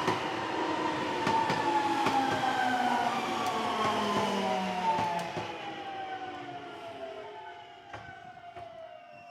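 Nankai Main Line train running past and moving away, with sharp wheel clicks and several tones sliding slowly down in pitch; the noise fades over the second half.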